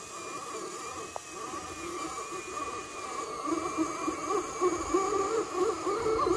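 Electric motor and gearbox of an RC scale crawler whining under load as it climbs a dirt slope, the pitch wavering with the throttle and growing louder in the second half.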